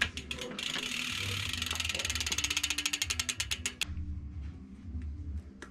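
BMX rear hub freewheeling, its ratchet clicking in a fast, even run for about three seconds as the cranks and chain are turned by hand, then stopping.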